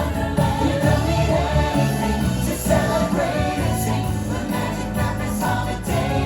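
Christmas show music with voices singing, steady and continuous.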